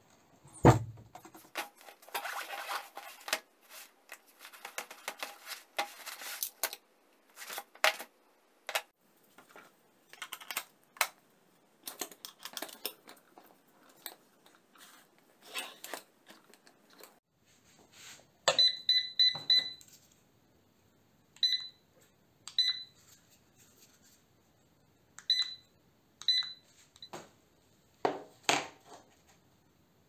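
A heavy thud near the start, then clicks and handling knocks. In the second half come short high electronic beeps, a quick run of them and then several single beeps, from a green-beam laser level being set up and operated.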